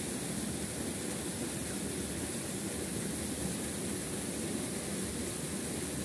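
Steady rush of a waterfall: an even, unbroken noise of falling water.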